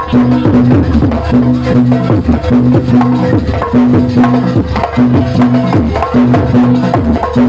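Jaranan music from a live ensemble: a steady beat of drums and clacking percussion under repeated held pitched notes that break off and restart in a regular rhythm.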